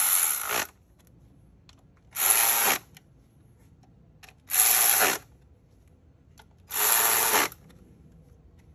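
Socket ratchet on a long extension clicking in four short runs, about two seconds apart, as the 10 mm ignition-coil bolts are tightened.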